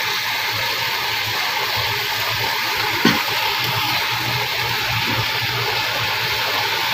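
Bangus (milkfish) steak simmering in its sauce in a pan: a steady hiss of bubbling and sizzling as the sauce reduces near the end of cooking. There is one brief knock about three seconds in.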